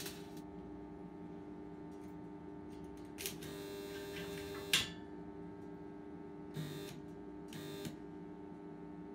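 Steady hum between welds, broken by short bursts of welding arc crackle. One burst starts a little over three seconds in, lasts over a second and ends in a sharp crack; two brief bursts follow a couple of seconds later.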